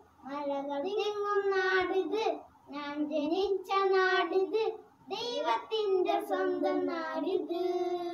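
A child singing a Malayalam song unaccompanied, holding long notes in phrases broken by brief pauses.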